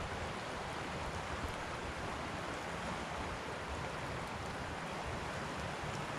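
A creek in flood rushing, a steady, even wash of water noise.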